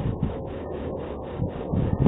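Wind rushing and rumbling over an outdoor webcam microphone in a rough, steady haze, with a few faint soft knocks.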